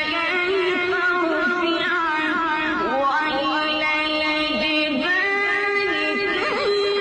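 A single voice chanting Quran recitation (tilawat) in long, melismatic held notes that waver and glide, stepping up to a higher sustained note about halfway through.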